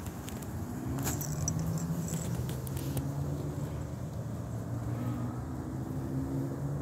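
Steady engine hum from a motor vehicle, drifting slightly in pitch, with a few sharp clicks about a second in.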